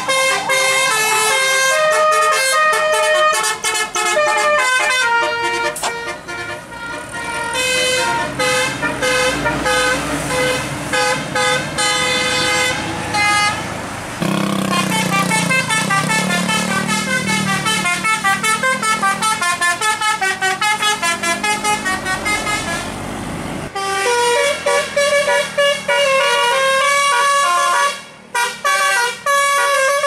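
Tour buses' Basuri 'telolet' multi-tone musical horns with top-mounted trumpets, playing fast tunes of stepped notes as the buses pass one after another. A lower, denser run of notes fills the middle, and the tune switches abruptly about two thirds through.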